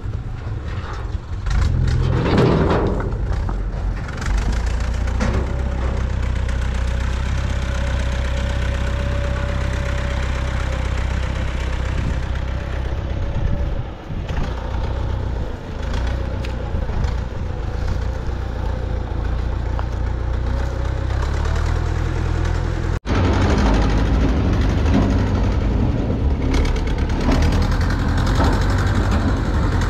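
Farm tractor's engine running steadily while rocks clatter and tumble out of its tipping trailer in the first few seconds. About two-thirds of the way in the sound breaks off for an instant and the engine comes back louder as the tractor drives along with its empty trailer.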